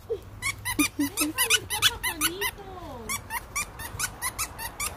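Squeaky dog toy squeezed over and over, several short high squeaks a second. For the first three seconds a lower sliding voice-like sound runs under the squeaks.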